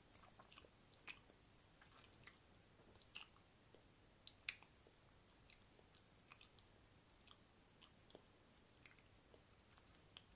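Faint wet mouth sounds close to the microphone: sharp, irregular tongue-and-lip clicks and smacks, roughly one or two a second, one louder about halfway through.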